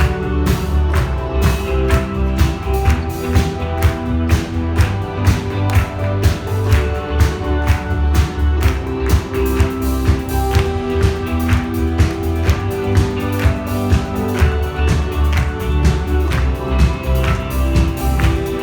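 Live band music, an instrumental passage without vocals: a steady beat over sustained bass and held chords.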